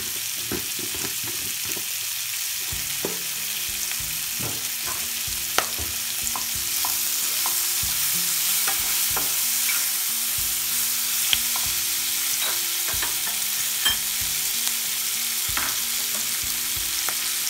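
Chopped onions, bell peppers and green chillies sizzling in hot oil in a kadai, with a steady hiss that grows a little louder about a third of the way in. A wooden spatula stirs and scrapes through them, with frequent short taps against the pan.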